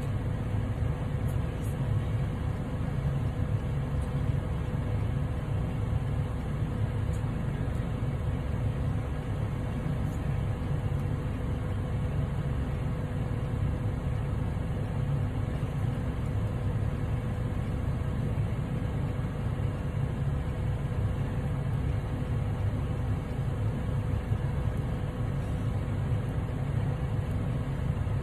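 Car engine idling steadily: an even low hum with a faint steady whine above it.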